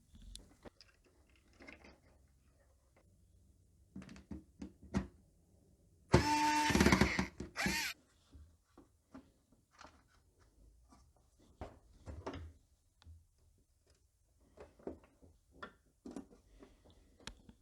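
Aerosol can of contact spray hissing as it is sprayed into a turntable's speed-control potentiometer to lubricate its resistor tracks: one burst of about a second and a half about six seconds in, then a short second burst. Faint clicks and knocks of handling around it.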